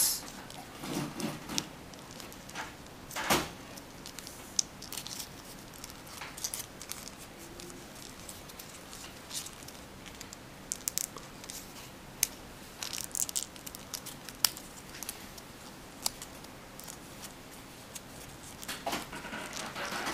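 Origami paper being folded and its flaps tucked into the corners by hand: scattered soft crinkling and rustling, with short crisp paper crackles here and there.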